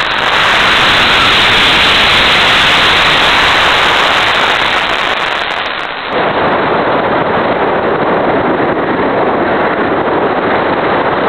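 Amateur rocket motor firing: a loud, steady rushing roar that starts suddenly on the launch command and holds, dipping briefly about six seconds in.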